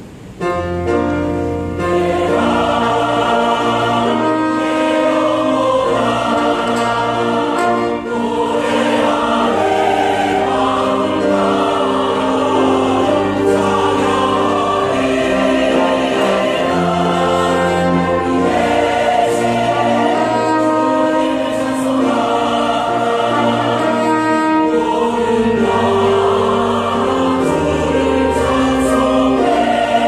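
Choir music: many voices singing slow, sustained chords over a slow-moving bass line, starting just after a brief drop at the very beginning.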